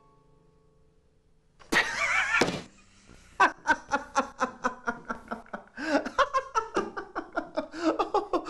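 A person bursting into loud laughter: a sharp vocal outburst about two seconds in, then a long run of rapid, pulsing "ha-ha" bursts, several a second. A plucked musical tone fades out at the start.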